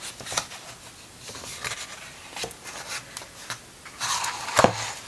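Pages of a large hardback art book being turned and pressed flat by hand: soft paper rustles and light taps, then a louder sweep of a page near the end finishing in a sharp thump as it lands.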